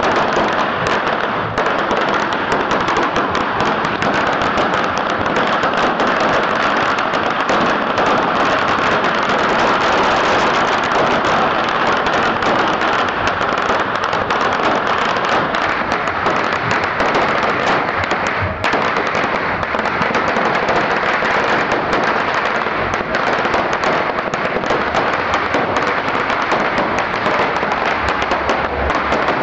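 A long pagara, a string of firecrackers, going off in a dense, continuous crackle of rapid bangs.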